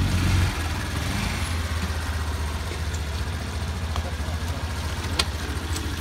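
Small motorcycle engine running low and steady. It drops in level about half a second in, then settles to an even idle-like hum, with a few light clicks near the end.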